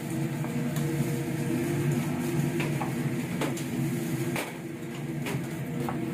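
Boat engine running steadily, a low even hum, with scattered light clicks and knocks over it.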